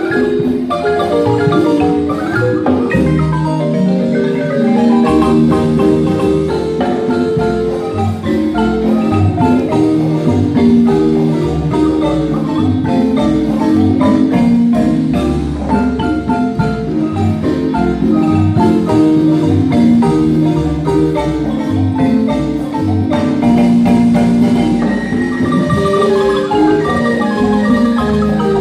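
Guatemalan marimba ensemble playing a tune: many mallet notes sounding together over a deep bass line, with no break.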